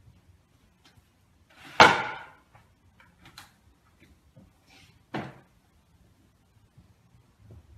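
Wooden folding table top flipped over and dropped into place: a loud wooden knock about two seconds in, a few light clicks around three seconds, and a second knock about five seconds in.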